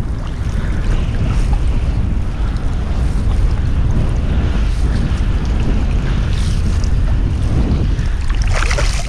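Steady wind rumbling on the microphone over the wash of surf and shallow water.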